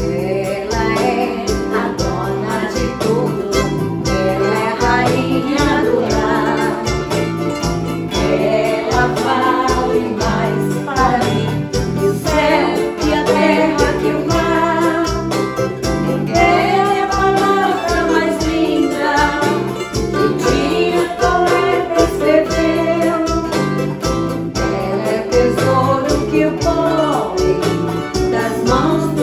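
A group of voices, mostly women's, singing a song together, accompanied by a strummed acoustic guitar, a cavaquinho and an electronic keyboard.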